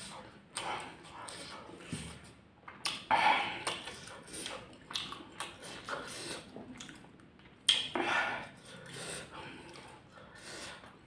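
Close-miked eating sounds: a man chewing a mouthful of chilli fried rice and breathing hard through an open mouth against the chilli heat, with irregular sharp breaths. The loudest bursts come about three seconds in and again just before eight seconds.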